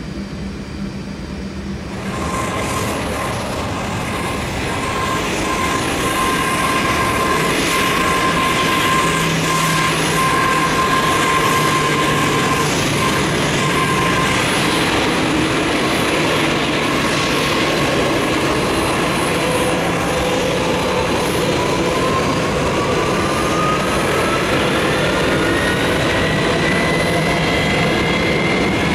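Boeing 737-200's Pratt & Whitney JT8D jet engines running: a loud, steady rush with a high whine, louder from about two seconds in. From about twenty seconds in, whines rise steadily in pitch as an engine spools up.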